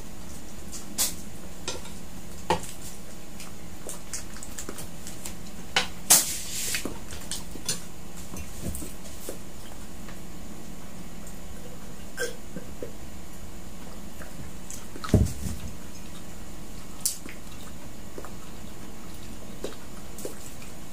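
Scattered clinks and taps of utensils, plastic food containers and glassware on a dining table during a meal, over a steady background hum. A louder clatter comes about six seconds in and a dull thump about fifteen seconds in.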